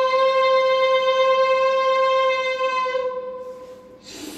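A man imitating a train horn with his voice through a microphone: one long, steady hooting tone that fades out about three seconds in. Near the end a rushing noise begins, his imitation of the train moving off.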